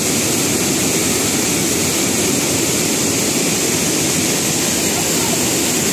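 Water pouring over a dam's spillway weir in heavy overflow after the rains and crashing into the churning pool below: a loud, steady rushing roar.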